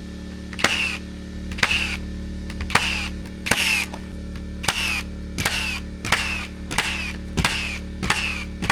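Hikoki nail gun firing in bump mode while subfloor sheets are nailed down, about one nail a second. Each sharp shot is followed by a short falling whir.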